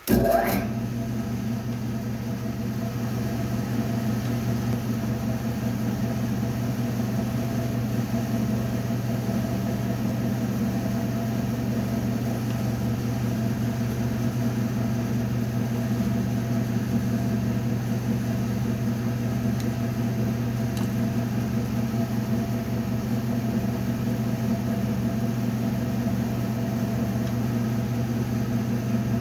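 Drill motor switched on and running steadily with an even hum, ready to drill holes in metal parts.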